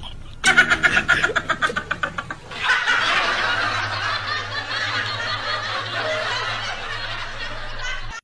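Laughter: a quick run of high-pitched laugh pulses, then a longer, denser stretch of laughing over a low steady hum.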